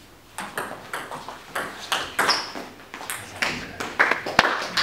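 Table tennis rally: the ball clicking off the bats and bouncing on the table in quick succession, several hits a second, starting about half a second in. A sharp tap near the end.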